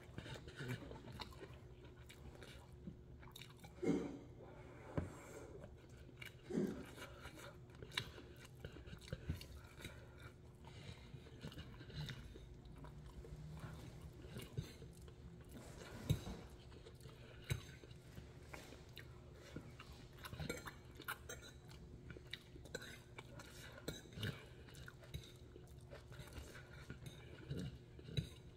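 Close-up chewing of soft noodles and vegetables, with scattered sharp clicks and scrapes of a fork on the plate.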